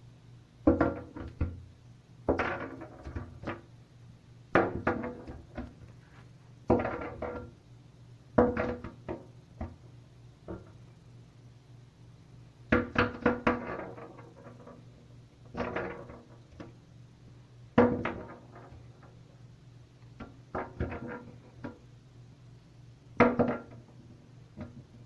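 A seagull dropping and banging an acorn against a skylight: bursts of several hard knocks in quick succession about every two seconds, each burst ringing briefly in the pane, heard from the room below.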